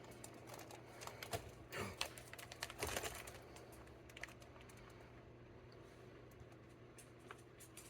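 Faint, scattered light taps and clicks from a kitten moving about on a cupboard shelf, busiest in the first few seconds and then sparse.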